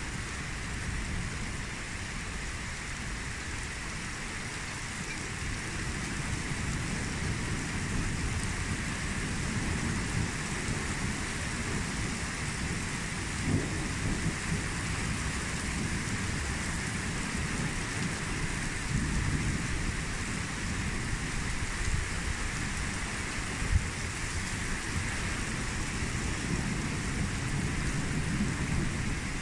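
Steady rain from a thunderstorm, with thunder rumbling low beneath it and getting a little louder after a few seconds. Two short, sharp knocks stand out, one about halfway through and a louder one later.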